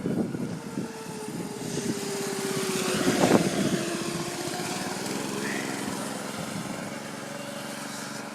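Homemade mini bike's 212cc Predator single-cylinder four-stroke engine passing by under throttle, its pitch falling as it goes past about three seconds in, then running on more quietly.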